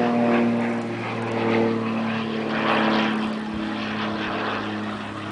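A propeller airplane's engine running steadily, its tones shifting slightly in pitch as it passes.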